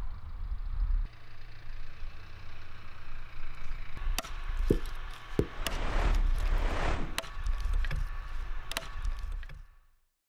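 Hatchet chopping and splitting wood on a chopping block: several sharp knocks, with a crackling spell as the wood splits a little past the middle, over a steady low rumble. The sound stops just before the end.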